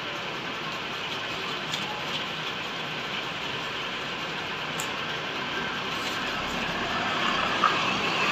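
Large tailor's scissors cutting through a paper pattern, with a few faint snips, over a steady rushing background noise.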